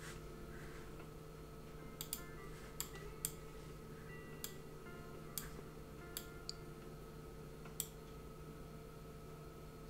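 Scattered computer mouse clicks, about nine sharp irregular clicks, over a faint steady hum.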